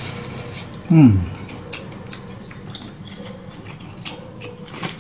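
Mukbang eating sounds: a short falling vocal 'mm' about a second in, then scattered small clicks of a metal spoon and chopsticks against the noodle pot, along with mouth sounds as he chews a shrimp.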